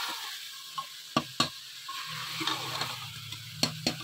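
Kachnar buds and beef pieces sizzling as they fry in an aluminium pressure cooker pot while a steel spoon stirs them, the spoon knocking sharply against the pot several times. A low hum joins about halfway through.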